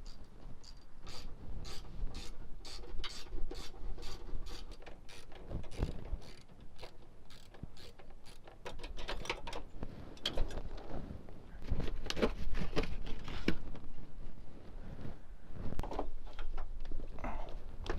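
Socket ratchet clicking in quick, even strokes, about four a second, for the first five seconds or so, then irregular clunks and scrapes of tools and metal parts being handled.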